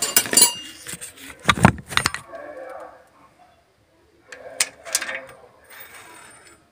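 Small metal parts and tools clinking and knocking as they are handled and set down, with a heavier knock about a second and a half in.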